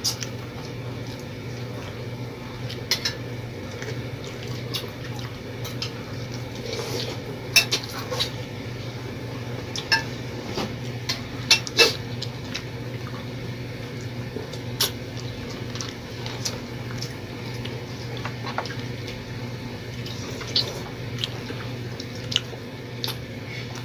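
Spoons clinking and scraping on plates and bowls as people eat, in scattered light clicks, a few louder about a third and halfway through, over a steady low hum.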